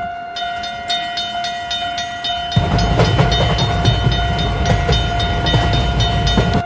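Railroad crossing sound effects: a crossing bell dinging rapidly over a long, steady train horn. A train's rumble joins about two and a half seconds in, and everything cuts off abruptly at the end.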